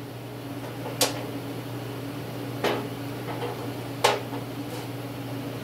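Three sharp clinks as metal tractor parts are handled and set down, about a second, two and a half seconds and four seconds in, over the steady hum of a running heater.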